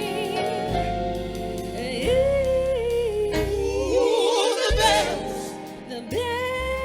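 A singer holding long notes with vibrato over instrumental backing with a low bass line.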